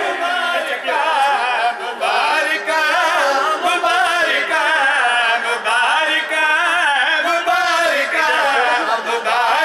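Male voices chanting a melodic devotional refrain into a microphone, unaccompanied, with long wavering held notes.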